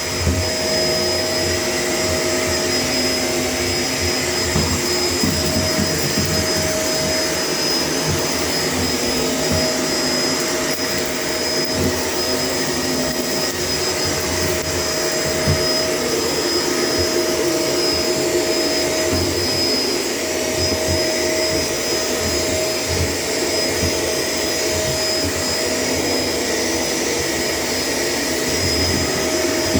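Shark LA702 Lift-Away upright vacuum cleaner running steadily, a constant motor hum with a thin high whine on top, as it is worked over the floor.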